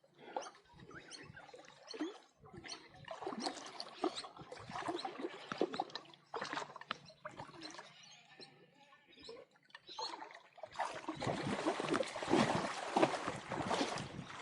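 Shallow water splashing and trickling at the water's edge, in irregular bursts that grow denser and louder about eleven seconds in.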